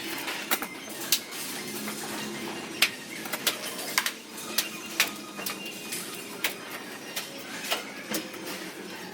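Irregular sharp clicks and taps from handling a 3D letter and its double-sided tape as it is pressed onto the wall, over a faint steady hum.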